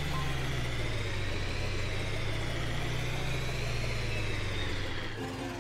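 Cartoon truck engine sound effect: a steady low engine hum with a high whine that slowly wavers up and down, stopping about five seconds in as music comes back.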